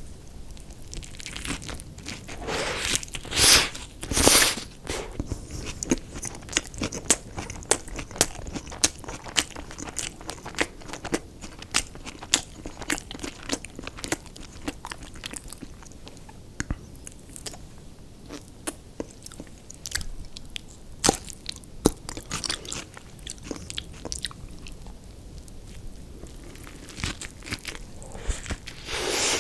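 Close-up eating sounds of crunchy fast food: two loud crunching bites about three and four seconds in, then steady chewing with many small crisp crackles, and another crunch near the end.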